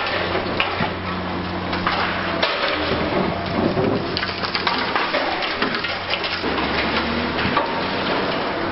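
A high-reach demolition excavator's diesel engine running with a steady low hum, under a continuous clatter and crunch of concrete and debris breaking and falling, with many sharp crashes.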